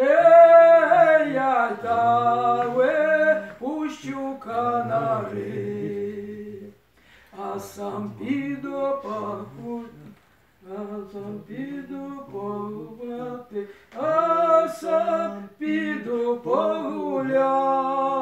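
An elderly man singing a Ukrainian folk song unaccompanied, in slow drawn-out phrases with two short breaths about a third of the way in.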